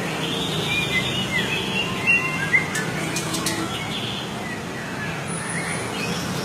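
Songbird singing in a run of short chirps and quick whistled slides over a steady background hum, with two sharp clicks partway through.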